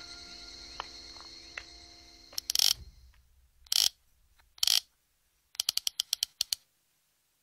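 Soft background music fades out about three seconds in. Three short, loud scratchy noises follow, then a quick run of about ten ratchet-like clicks, roughly ten a second.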